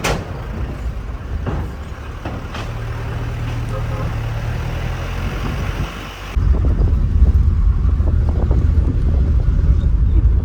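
Car engine and road noise heard from inside a moving taxi, a steady low rumble with a knock or two at the start; it suddenly gets louder about six seconds in.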